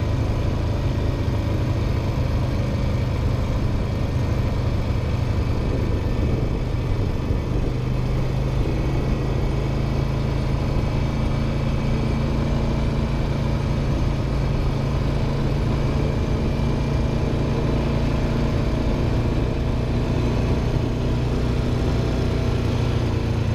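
ATV engine running steadily at low speed, a continuous drone with small shifts in pitch.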